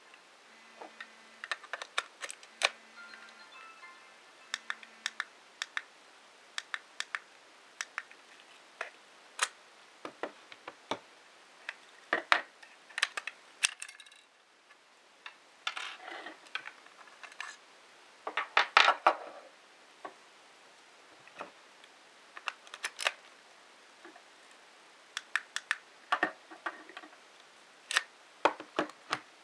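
Plastic radio flash trigger receivers being handled on a wooden tabletop: scattered clicks, taps and knocks as they are picked up, turned over and set down, with a busier run of knocks and rattles past the middle.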